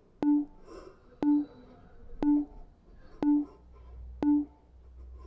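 Workout interval timer counting down: five short low-pitched beeps, one a second, each starting with a click. The countdown marks the end of the exercise interval.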